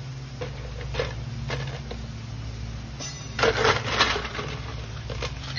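Ice cubes clattering as they are scooped from an ice bucket for the glasses, a dense burst about three and a half seconds in, with a few light glass clinks and knocks before and after it, over a steady low hum.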